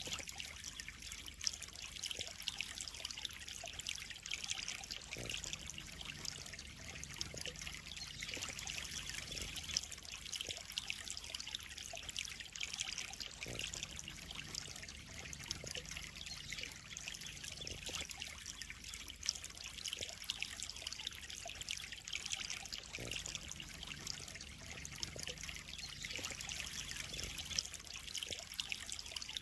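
Water trickling and splashing steadily into a koi pond, a continuous hiss of falling water dotted with many small droplet ticks.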